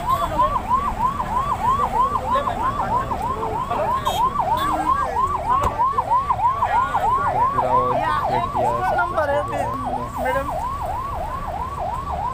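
Emergency vehicle siren wailing in a fast, even up-and-down sweep, about three cycles a second.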